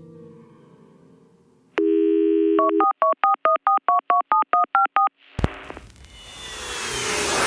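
Telephone sound effect: a steady dial tone for about a second, then a quick run of about ten short beeps alternating between two pitches. A click about five seconds in is followed by a rising whoosh that swells in loudness.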